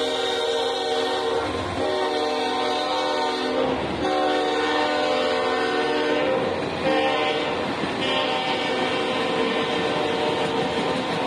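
Freight locomotive's multi-note air horn blown in several long blasts, over the steady rumble of the train's rail cars rolling past.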